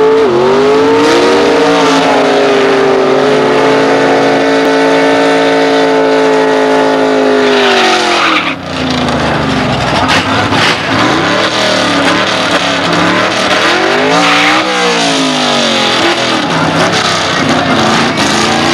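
1957 Chevrolet station wagon drag car's engine held at high revs for about eight seconds as its rear tyres spin on dry pavement in a smoky dry hop, then falling away. Afterwards the engine runs unevenly and is blipped a few times as the car rolls toward the starting line.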